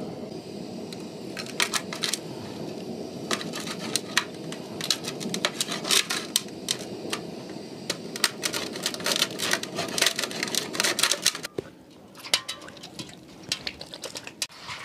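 Knife blade cutting boiled conch meat on a metal plate, making many quick, irregular clicks and taps as it strikes the plate. A steady background rush drops away about eleven seconds in, after which the taps are fewer.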